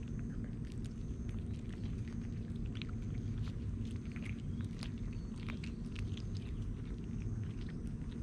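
Cats and kittens crunching dry kibble close up: many quick, irregular crisp crunches. A steady low rumble runs underneath.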